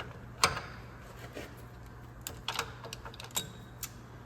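Scattered sharp metallic clicks and clinks of hand tools being handled, the loudest about half a second in, over a steady low hum.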